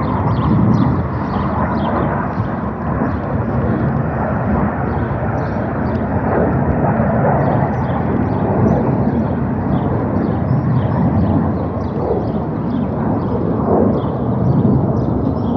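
Panavia Tornado fighter jet passing overhead: a loud, steady roar from its twin turbofan engines that swells and eases slightly without letting up.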